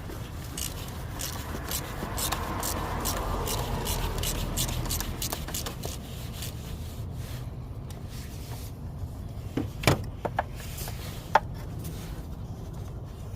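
Ratchet with a 1 1/4 inch oil filter socket loosening the cartridge oil filter housing cap, a run of quick, even clicks for the first five seconds or so. A sharp knock comes about ten seconds in, followed later by a lighter click.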